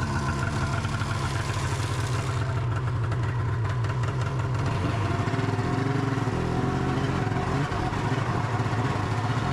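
Snowmobile engine running steadily at low speed.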